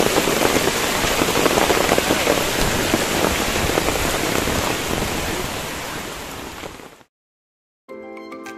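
Rain falling, a steady dense hiss that fades away about six to seven seconds in. After a brief silence, music begins near the end.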